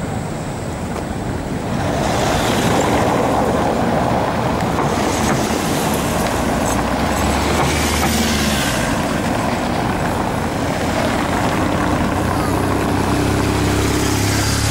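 Street traffic: cars driving past close by on a cobbled road, a steady rush of tyre and engine noise that grows louder about two seconds in. A steady engine hum comes in near the end.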